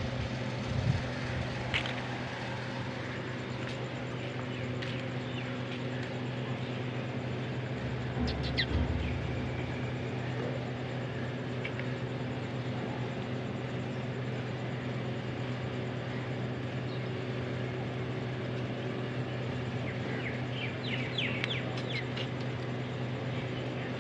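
Steady low mechanical hum under a haze of background noise, with a brief low rumble about a third of the way in and a quick run of short, high chirps near the end.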